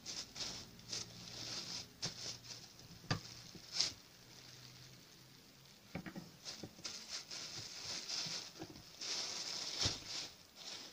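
Thin plastic bag crinkling and rustling in the hands, in uneven bursts, with a few sharp clicks about three and four seconds in and again near the end.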